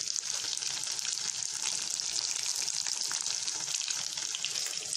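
Chicken pieces sizzling and bubbling in butter and their own released juices in an uncovered kadai, a steady hiss.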